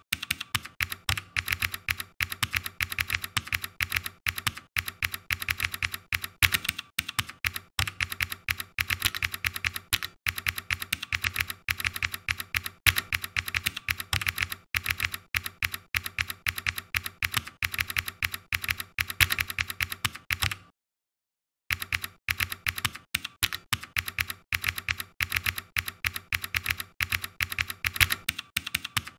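Typing on a computer keyboard: a fast, continuous run of keystrokes, broken once, about two-thirds of the way through, by a second of dead silence.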